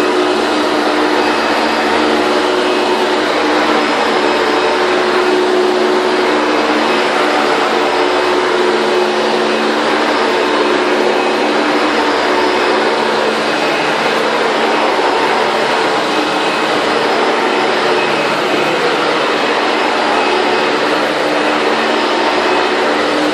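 Late-1990s Hoover Bagless twin-chamber upright vacuum cleaner, a dirty-air design, running steadily as it vacuums carpet: a constant motor whir with a low hum underneath.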